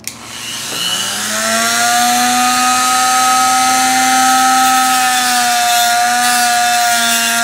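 Handheld electric rotary tool with a cutting disc switched on, spinning up over about a second to a steady high-pitched whine that holds at full speed, with slight dips in pitch.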